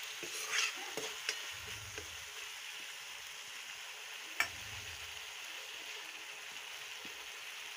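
Onion-and-spice masala sizzling steadily in oil in a kadhai as it is stirred, at the stage where the masala has begun to release its oil. A few sharp clicks sound over the sizzle, the loudest about four and a half seconds in.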